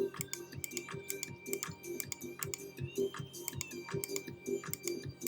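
Rapid, uneven clicking of a computer keyboard being typed on, over quiet background music with held tones.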